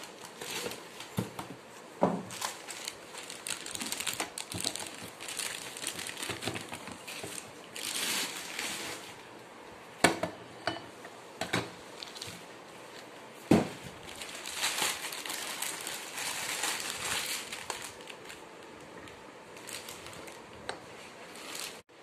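Plastic packaging being crumpled and pulled off a new electric filter coffee maker, in stretches of crinkling, with a few sharp knocks about two, ten and thirteen seconds in.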